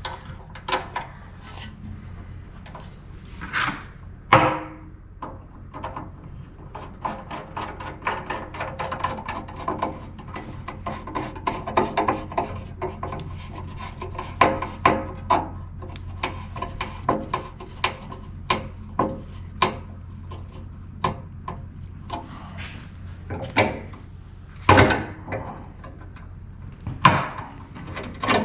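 Heavy service-entrance wire and hand tools being worked in a meter socket: rubbing and scraping with long runs of rapid clicking, broken by a few sharper knocks.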